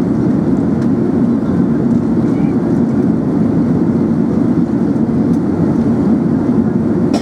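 Steady, loud cabin noise of an Airbus A380 in flight: a low, even rush of engine and airflow noise heard from inside the passenger cabin, with a short click at the very end.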